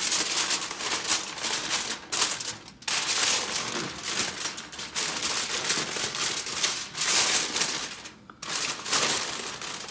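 Aluminum foil crinkling and crumpling as hands fold and press it tightly around a slab of ribs: a dense, rapid crackle with a few brief breaks, around two seconds in and again near the end.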